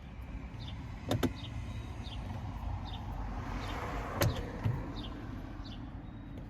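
Pliers turning a stuck bolt inside a pickup's door panel: a few sharp metal clicks and a brief scrape as the bolt slowly backs out.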